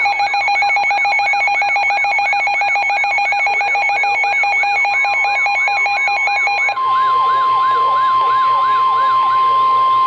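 Rapidly sweeping siren yelp, about three sweeps a second, layered with a steady buzzing alarm tone. About two-thirds of the way through the buzz stops and a steady high tone near 1 kHz takes over, like the NOAA Weather Radio warning alert tone that comes before a spoken severe thunderstorm warning.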